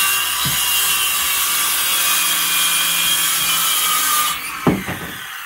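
Ryobi cordless circular saw ripping a narrow strip off a wooden board along an edge guide. The cut ends about four seconds in and the blade winds down, with a sharp knock just after.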